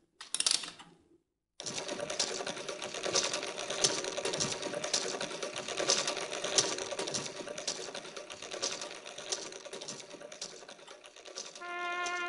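Clockwork mechanism of a wind-up toy bear violinist running: a dense, fast clicking and whirring rattle lasting about ten seconds.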